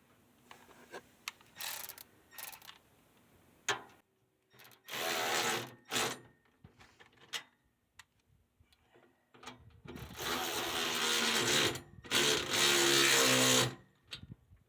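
Nuts being run down and tightened onto the wheelbarrow's bolts with a tool: three bursts of mechanical whirring, a short one about five seconds in and two longer ones near the end, with light clicks of parts being handled in between.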